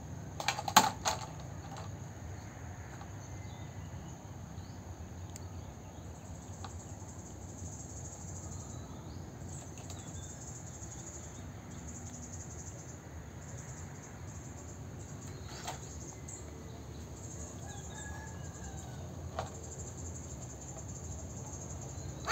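Quiet background with a faint high hiss that comes and goes. About half a second in comes a short clatter of knocks as plastic toy cars hit the wooden bench. A few faint clicks follow later.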